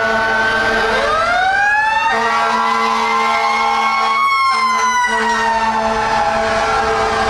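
Fire trucks' mechanical Federal Q2B siren winding up over about three seconds, then slowly winding down, mixed with other wailing sirens.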